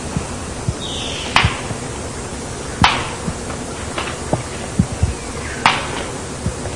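Scaled ground-cuckoo snapping its bill: three loud, sharp clacks spread over about four seconds, with a few fainter ones between, over a steady background hiss.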